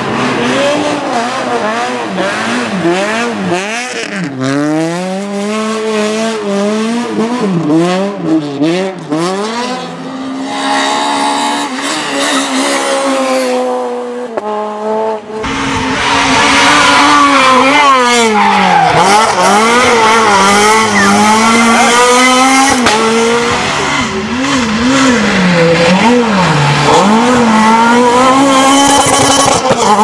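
Renault Clio R3 rally cars' naturally aspirated 2.0-litre four-cylinder engines revving hard, the pitch climbing and dropping again and again through gear changes and braking. About halfway through the sound cuts to a louder, closer car at full throttle.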